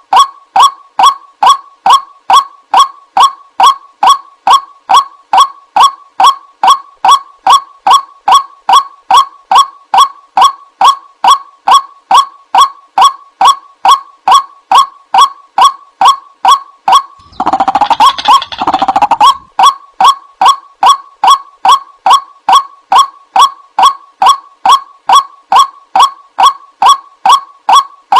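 White-breasted waterhen call: a short, pitched 'kuwak' note repeated about two and a half times a second in a steady, unbroken run, played as a recording to lure waterhens. About two-thirds of the way through, a harsher, denser chattering burst lasts about two seconds before the steady calling resumes.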